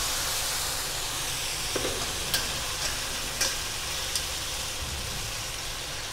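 Hot water sizzling and hissing on barnyard millet (bhagar) toasted in ghee in a frying pan, slowly dying down as it is stirred with a spatula. A few light clicks of the spatula against the pan come in the middle.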